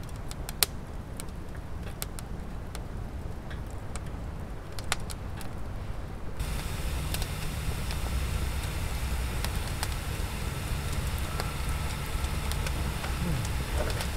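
Campfire crackling, with scattered sharp pops and snaps over a steady low rumble. About halfway through, a brighter hiss comes in under the crackles.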